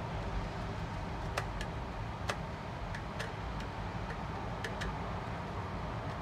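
Sharp small clicks, about seven scattered over a few seconds, from wire ends and terminal screws being worked on a PID temperature controller's socket, over a steady background hum.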